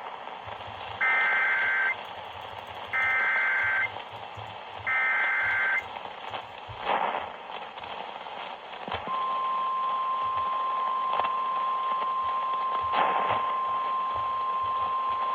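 Emergency Alert System activation relayed over AM radio: three short bursts of SAME header data, each just under a second, then, about nine seconds in, the steady single-pitch weather-radio attention tone begins, over a background of radio static.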